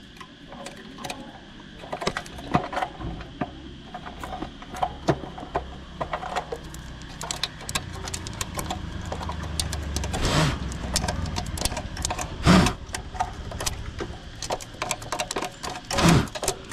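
Close handling noises inside a metal cable cabinet: rapid small clicks, scrapes and rustles as a hand works among the bracket and cable glands and clears debris. A low rumble builds in the middle, and a few loud short sounds break in during the second half.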